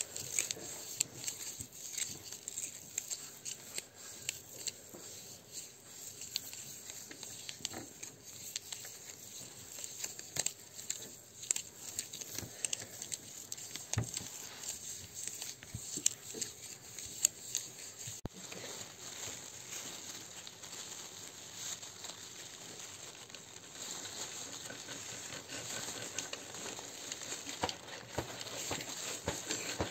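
Rustling, crinkling and irregular light tapping made by hand with classroom materials, children imitating nature sounds.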